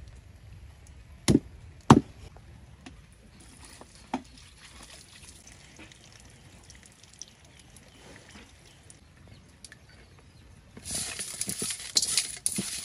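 Two sharp knocks a little over a second in, then near the end raw chicken pieces being rubbed and scrubbed by hand in a steel bowl, a wet crackling sound.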